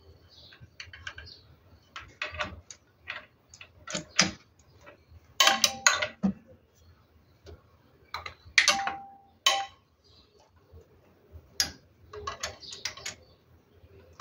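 Irregular metallic clicks and clinks of hand tools and fuel-line fittings being worked on a diesel injection pump, a few of them ringing briefly.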